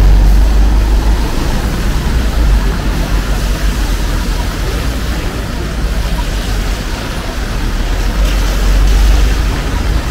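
City street traffic: a steady wash of vehicles running past, with a deep low rumble that is strongest at the start and swells again near the end.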